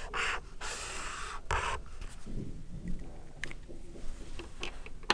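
Felt-tip marker scratching across paper in three quick strokes as a box is drawn, followed by a few faint clicks and taps.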